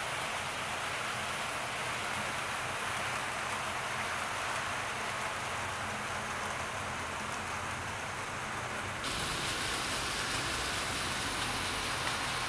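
00 gauge model trains running on the track: a steady whirr and rolling rumble of small locomotive motors and wheels on the rails. The rumble gets fuller about nine seconds in.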